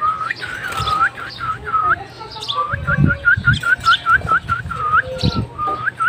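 A person whistling a long run of short swooping notes, each dipping and rising again, slower at first and quicker in the middle.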